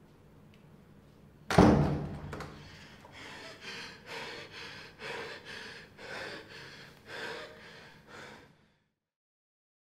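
A wooden room door thunks open about a second and a half in, followed by a run of heavy, rapid breaths, about one every half second.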